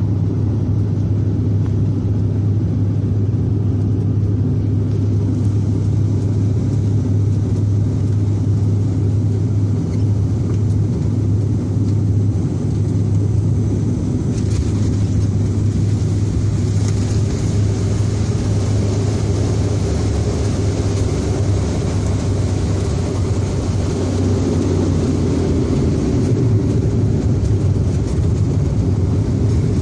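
Cabin noise of a Bombardier Dash 8 Q400 turboprop airliner during its landing, heard beside the wing: a steady, loud propeller and engine drone with a deep low hum. Partway through the landing roll a hissing rush swells over the drone for about ten seconds, then eases off.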